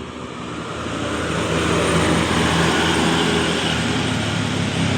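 Bus engine approaching, growing louder over the first two seconds, then running loud and steady with a broad rush of noise as it comes past.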